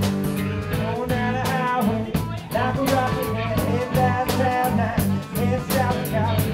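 Live band playing a song: electric bass guitar and drum kit keeping a steady groove, with guitar and a wavering lead melody on top.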